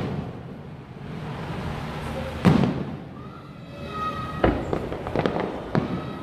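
Aerial fireworks shells bursting: one loud boom about two and a half seconds in, then a quick run of five or so sharper bangs near the end.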